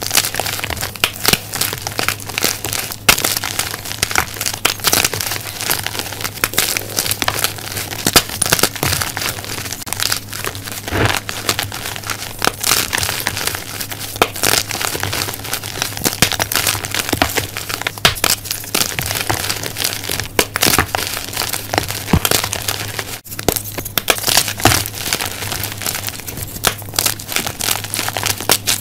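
Hands squeezing and crumbling blocks of white gym chalk (magnesium carbonate) into powder: a dense, continuous crunching and crackling of many small snaps.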